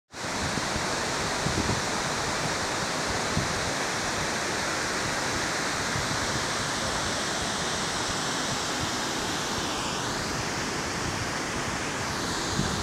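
River water pouring steadily over a low weir and churning in the pool below, a continuous even rushing.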